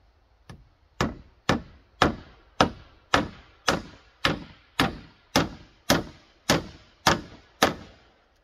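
Hammer driving a nail into a rough-sawn slab board overhead: one light setting tap, then thirteen steady blows about two a second, each ringing briefly.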